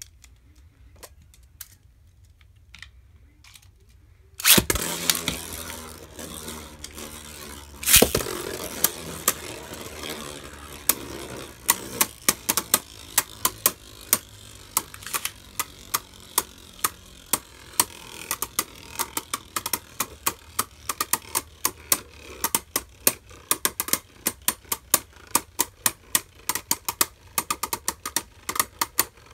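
Beyblade spinning tops in a plastic stadium. After faint scattered clicks, a loud impact about four and a half seconds in sets off a whirring spin, and a second loud clash comes about eight seconds in. From then on the tops knock against each other in sharp clacks that come faster and faster toward the end, about three or four a second.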